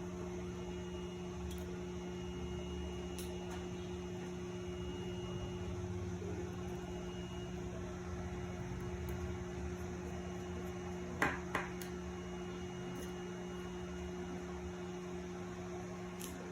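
Steady electrical hum, with two sharp clicks close together a little after two thirds of the way through.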